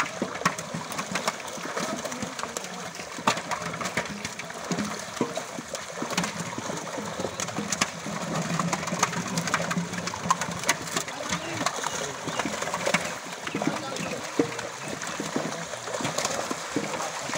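A mass of live fish thrashing in a drawn seine net in shallow pond water, making a busy, irregular patter of sharp splashes.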